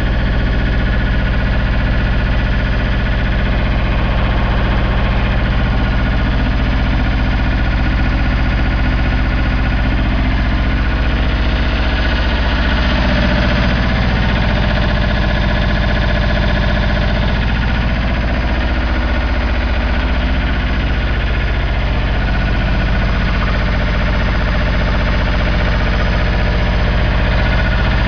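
MOSA TS300 EP1 welder generator's engine running steadily, an even hum with no change in speed.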